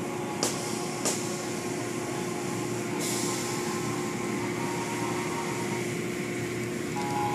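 Automatic car wash running, heard from inside the car: cloth strips and brushes swishing over the glass and water spraying, over a steady machinery hum. Two sharp ticks come about half a second and a second in, and the hiss drops a little about three seconds in.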